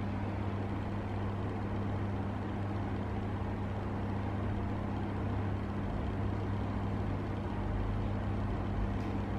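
Steady low hum over an even background rumble, with the rumble growing a little heavier about two-thirds of the way through.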